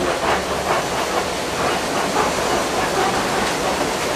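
Safari ride truck driving through a shallow river ford: a steady rush of water and tyre noise with the rumble and rattle of the truck body.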